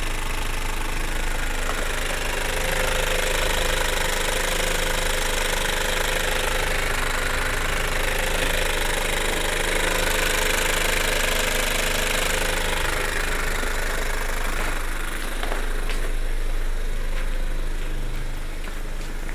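2002 Audi A3's 1.8-litre turbocharged four-cylinder (AUM) engine running with a loud rattling noise from the left side of the engine, of a cause the owner doesn't know. The rattle is strongest for most of the first two-thirds, then eases off.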